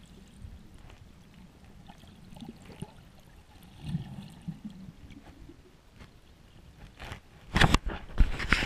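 Water sloshing and splashing at the surface, picked up by a camera held at the waterline, as a snorkeler's fins kick and churn the water. Quiet at first, with a low splash about four seconds in and a run of loud splashes and knocks near the end.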